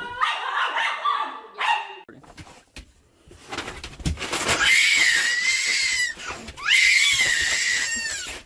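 A dog barking and yelping, then two long, loud, high-pitched wavering cries, one about halfway through and one near the end.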